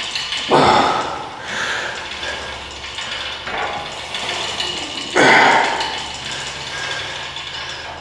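Cable machine's pulleys and weight stack working through single-arm cable pull-down reps, a mechanical running and clatter of the cable over the pulleys. Two louder strokes come about half a second in and about five seconds in, each fading within a second.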